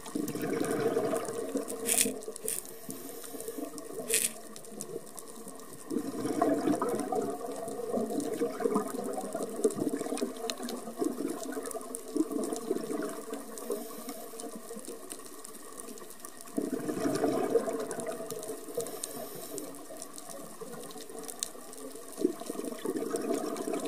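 Scuba regulator exhaust bubbles recorded underwater, bubbling in louder bursts at the start, about six seconds in and about sixteen seconds in, with steady water noise between. Two sharp clicks come near two and four seconds.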